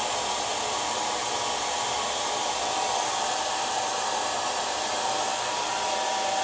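Handheld hair dryer running steadily, a blowing rush of air with a faint steady whine from its motor.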